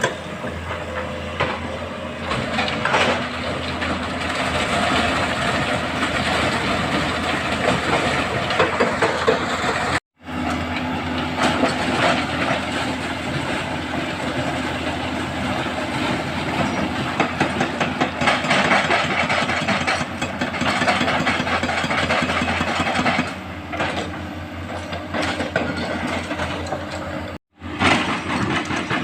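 Heavy diesel earthmoving machinery running under load, excavator and dump-truck engines together, with steady clatter and rattling. The sound cuts out abruptly twice.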